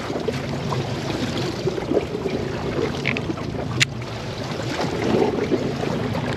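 Steady wind and sea noise aboard a fishing boat at sea, over a low steady hum, with a single sharp click a little past the middle.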